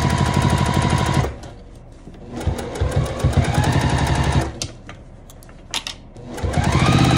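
Domestic electric sewing machine stitching a seam in short runs. The motor whirs up to speed with a rapid, even needle clatter, stops about a second in, runs again for about two seconds in the middle, and starts up once more near the end.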